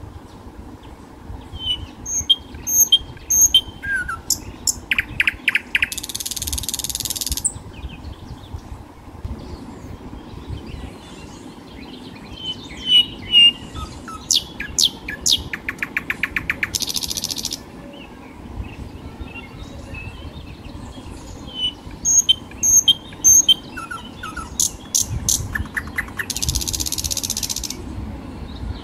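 Bird chirps in a repeating loop: short chirps and quick clicking runs, each ending in a high hiss about a second long. The same sequence comes round about every ten seconds over a low rumble.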